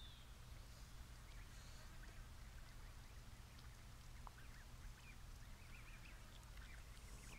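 Faint, scattered short high bird chirps and peeps over a steady low hum.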